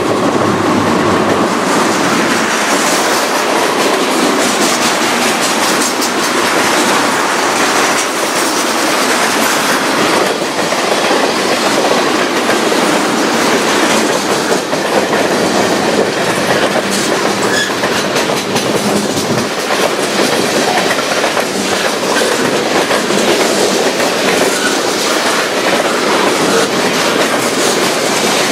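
Freight train rolling past at speed: a steady, loud rolling noise with rapid repeated clicking of steel wheels over the rails.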